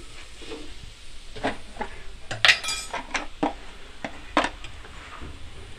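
Wooden spatula knocking and scraping against a nonstick frying pan while stirring a dry dal filling, with a louder ringing clink about two and a half seconds in.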